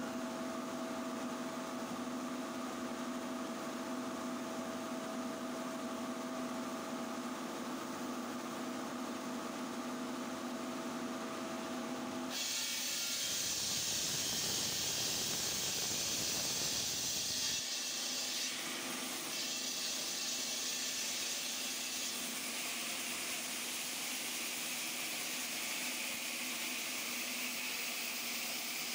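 Stone-cutting saw machine running with a steady hum. About twelve seconds in the sound switches abruptly to a louder, steady hiss as the blade works the stone slab.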